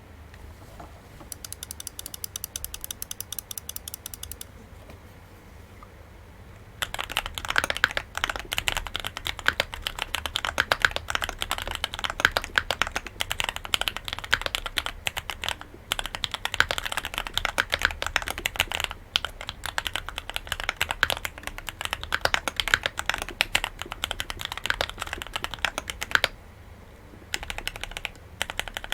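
Typing on a custom mechanical keyboard with Gateron Oil King linear switches, an aluminium case and ABS keycaps: a dense, quick run of keystrokes, with a short pause near the end. A fainter, fast, even ticking comes first, before the typing starts.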